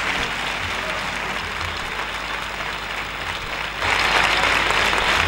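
Theatre audience applauding at the close of a performance; the applause swells suddenly louder about four seconds in.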